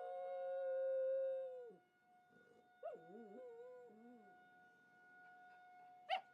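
Dog howling at a tornado siren: one long held howl that breaks off about two seconds in, then a shorter wavering howl, and a short sharp yip near the end. The siren's steady tone runs underneath.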